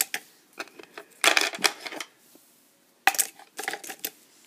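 Small plastic fingerboards clicking and clattering against one another as a hand picks through a pile of them, in irregular bursts, the loudest about a second in and again about three seconds in.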